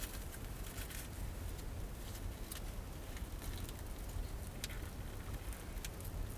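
Small wood fire crackling, with scattered sharp pops and clicks over a steady low rumble.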